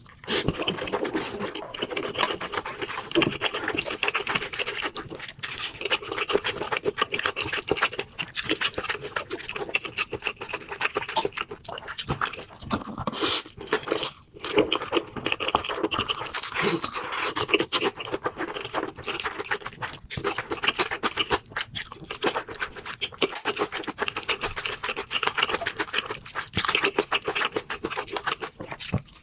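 Close-miked eating: a person chewing food with constant wet mouth clicks and smacking.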